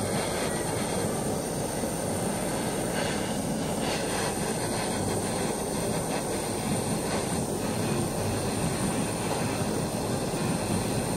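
Gas torch flame burning with a steady rushing hiss while it heats a small piece of folded coin metal to an orange glow.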